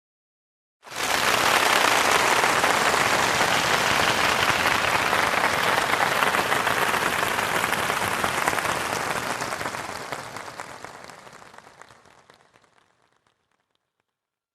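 Audience applause that starts abruptly about a second in, holds steady, then fades away over the last few seconds.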